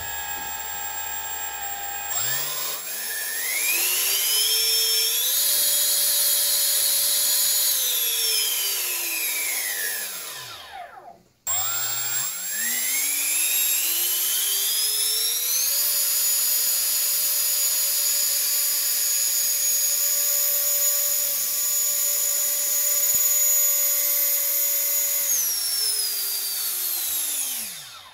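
Freewing 70 mm electric ducted fan on a 4S battery, fitted with a paper thrust tube, spooling up to a high steady whine, holding, then winding down. It does this twice: a short run that stops suddenly, then a longer one held for about nine seconds before spooling down.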